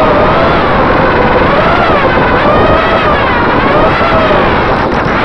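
FPV racing quadcopter's EMAX RS2205 brushless motors and propellers whining in flight, the pitch rising and falling with the throttle, over rushing wind on the onboard camera's microphone.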